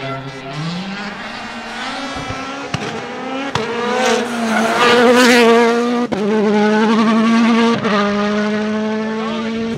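Hyundai i20 Coupe WRC rally car's turbocharged four-cylinder engine under hard acceleration, loudest as it passes close by about five seconds in. Two sharp breaks in the engine note about six and eight seconds in mark gear changes, then the pitch settles and falls slightly as the car pulls away.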